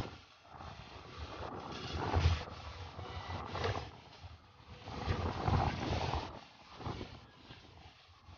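Motorcycle riding on a rough gravel road, heard through wind buffeting the camera microphone in irregular gusts that swell and fade every second or two.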